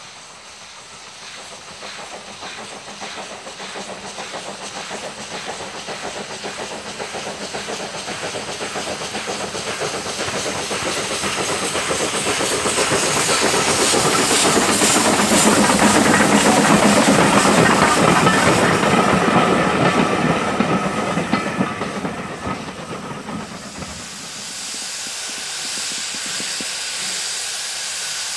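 LBSC Terrier steam tank engine W11 Newport working a train past, its exhaust chuffing and hissing louder as it approaches and fading as it goes by. About 24 seconds in, this gives way to a steadier hiss of steam from a locomotive standing at a station.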